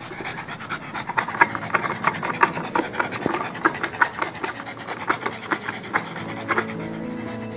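Bichon Frise panting quickly and rhythmically, out of breath from play.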